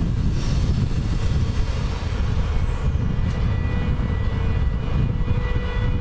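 NSB El 18 electric locomotive hauling passenger coaches slowly toward the listener: a steady low rumble, with a brief high falling whistle about two seconds in and a steady high whine that comes up about halfway through.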